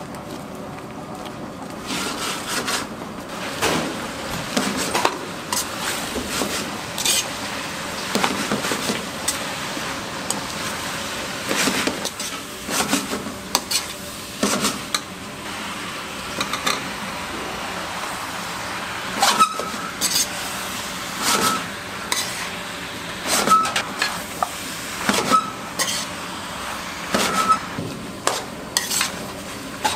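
Vegetables and meat in red pepper sauce sizzling in a frying pan while a metal spatula stirs and scrapes them, knocking against the pan every second or two. In the second half several of the strikes ring with a short metallic ping.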